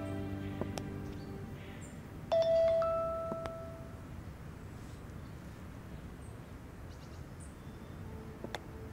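Mobile phone ringing with a chime ringtone: a bell-like note followed by a higher one, sounding again about two seconds in and dying away within two seconds. After that only a few faint clicks.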